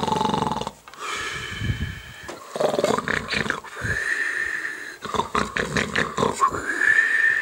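A rooster crowing: several drawn-out crows, the last one held high near the end.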